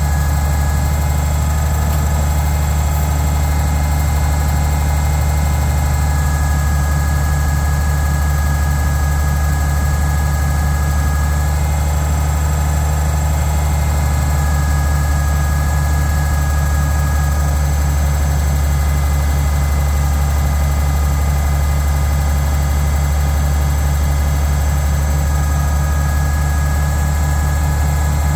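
Oliver 1650 tractor engine running steadily at idle, an even low drone with no change in speed.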